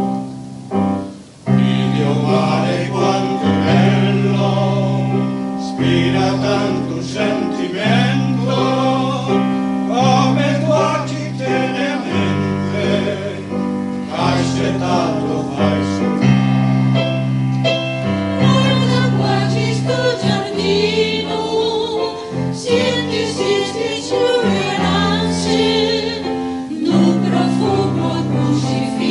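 A piano plays briefly, then a mixed amateur choir of women's and men's voices comes in about a second and a half in, singing a song with piano accompaniment.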